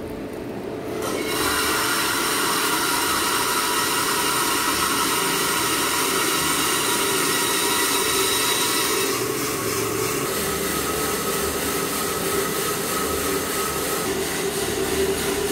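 Green coffee beans pouring from the hopper into the preheated rotating drum of a drum coffee roaster: charging the roaster. A dense rattling rush starts suddenly about a second in, over the steady hum of the running roaster, and thins slightly after about nine seconds as the beans tumble in the drum.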